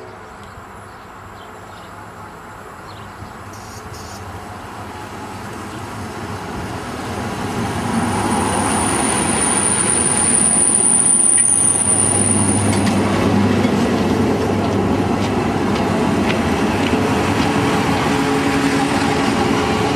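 Narrow-gauge Zillertalbahn train approaching and passing close by, its carriages rolling past with steady wheel and rail noise. It grows louder over the first eight seconds or so, then holds loud as the cars go by. A thin high wheel squeal comes in about eight seconds in and lasts a few seconds.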